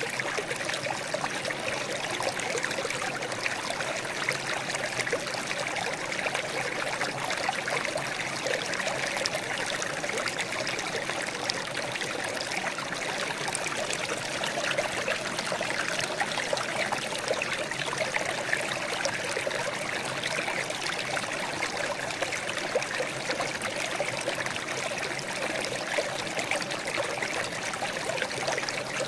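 Water trickling and babbling steadily, a continuous splashing with many small droplet crackles and no pauses.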